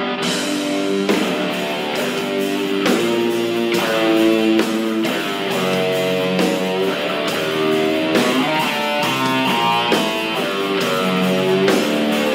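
Live heavy metal band music: electric guitar playing held chords and melodic notes that change every second or so over steady drum and cymbal hits.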